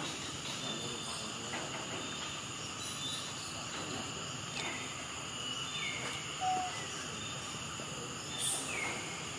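Outdoor ambience with a steady insect drone and a run of short high chirps that fall in pitch, repeating about once a second in the second half. A brief sharp hiss comes about eight and a half seconds in.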